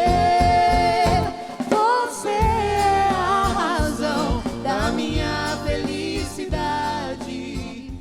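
Singers performing a Brazilian pop song with band accompaniment: a sung note held through the first second, then a moving melody over regular bass notes.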